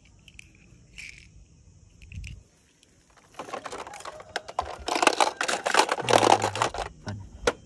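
Hard plastic toy cars clicking and clattering as they are handled and pushed into a plastic toy fire truck's storage compartment, a dense run of clicks and rattles starting about three seconds in.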